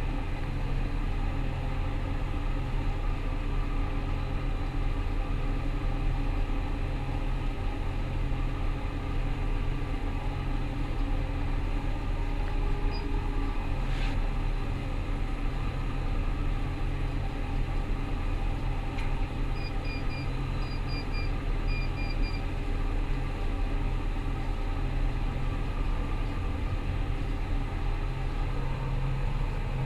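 Rostselmash Vector 425 combine harvester running steadily under load, a constant low drone. About halfway through there is a single click, and a few seconds later a short run of high electronic beeps.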